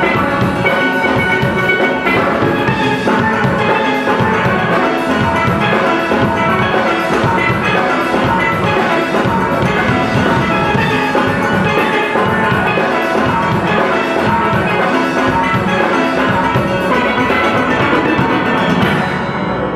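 Steel band music: steelpans playing a melody over a drum beat, the top end thinning out just before the end.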